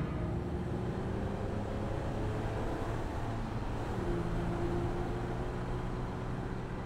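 A car driving along a road, with steady engine and tyre noise.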